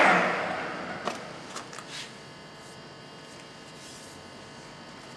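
Microcut Buffalo-Seiki 1740 centre lathe winding down after being switched off, its gear whine fading over about two seconds. A few light metallic clicks follow as the machine is handled.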